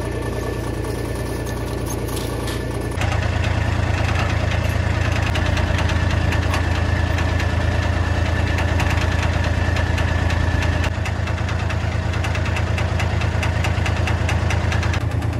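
A steady engine running at idle, a low drone with a fast, even knocking pulse; it gets louder about three seconds in.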